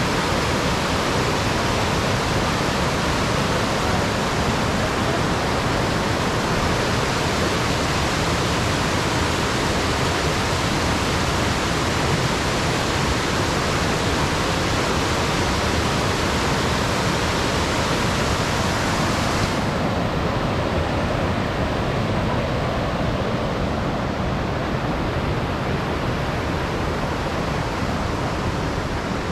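Steady loud rush of falling water in a gorge, an even hiss with no breaks. About two-thirds of the way through it suddenly loses some of its highest hiss and goes on a little duller.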